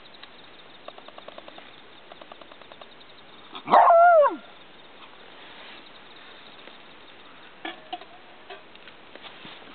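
A beagle gives one loud, drawn-out bark that rises and then falls in pitch, about four seconds in, followed near the eighth second by a shorter, fainter bark.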